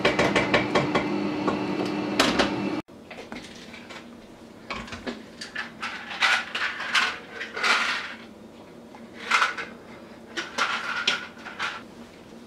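A silicone spatula stirring and scraping against a stainless steel pot, with quick clicks over a steady low hum, cut off abruptly about three seconds in. Then quieter, scattered clinks and scrapes of dishes and utensils.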